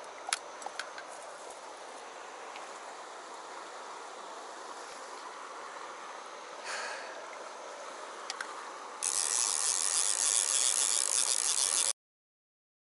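Steady rush of stream water with a few small clicks and knocks. About nine seconds in, a much louder bright hiss takes over, then all sound cuts off abruptly near the end.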